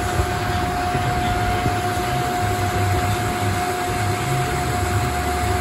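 Metal lathe turning a 6-inch steel workpiece, the tool cutting steadily, with a steady whine over the machine's low rumble.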